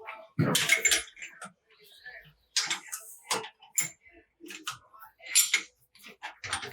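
Irregular metallic clinks and knocks of hand tools and steel parts being handled during wheel bearing and hub work, about six louder strikes with short ringing.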